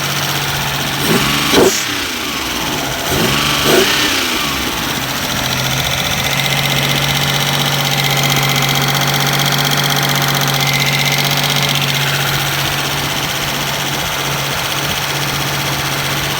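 The 1993 Mitsubishi 3000GT SL's freshly rebuilt 3.0-litre V6 running steadily, with two brief throttle blips in the first four seconds before it settles back. These are its first minutes running after the rebuild, and it is loud.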